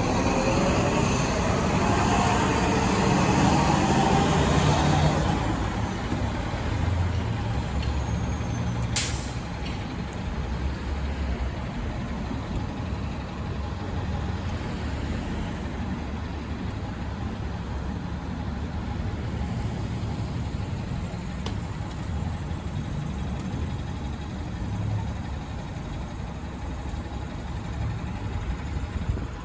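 A TTC city bus drives past with its engine running, loudest in the first few seconds as the engine pitch rises and falls, then the steady rumble of street traffic. A brief sharp hiss of air about nine seconds in.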